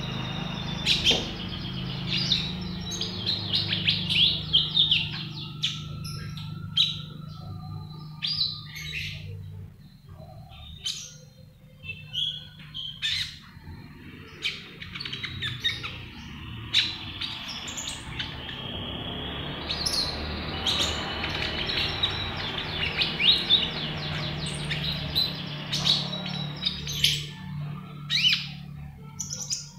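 Spotted-mutation rose-ringed parakeet (konin) chattering in a string of quick high chirps and short squawks. It goes quieter for a while mid-way, then chatters busily again, over a steady low hum.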